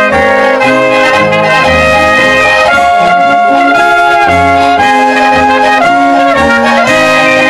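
Small Bavarian brass band playing a tune: trumpets carry the melody over a tuba bass line, with accordion and drums. The band plays loudly and without a break.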